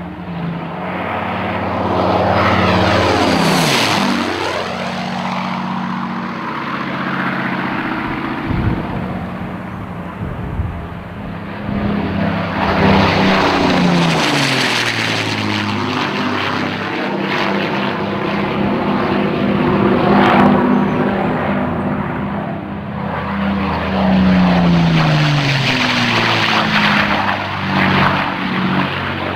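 The de Havilland Mosquito's twin Rolls-Royce Merlin V-12 engines and propellers pass at high speed several times. The engine note swells as the aircraft comes in and drops in pitch as it goes by.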